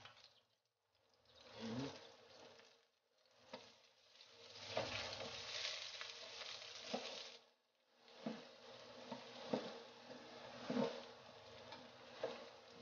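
Minced garlic sizzling faintly in hot oil in a nonstick frying pan, with a spatula scraping and tapping the pan as it is stirred. The sound drops out briefly twice.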